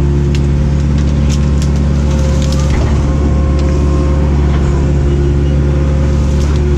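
Cat 307B excavator's diesel engine running steadily under load while it works, with scattered cracks and knocks over it.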